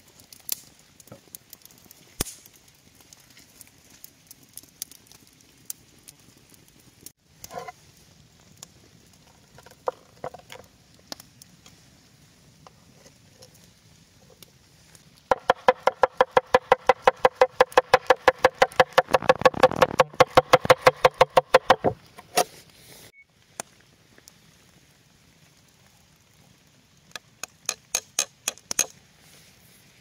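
A fast, even run of sharp, ringing knocks, about six a second, lasting about seven seconds, with scattered taps and clicks before it and a shorter run of clicks near the end.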